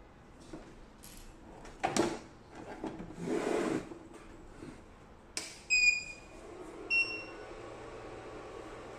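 A knock and a scrape from handling a diamond microdermabrasion beauty machine's plastic casing, then a click, two short electronic beeps about a second apart, the second slightly higher, and a steady low hum as the machine powers up.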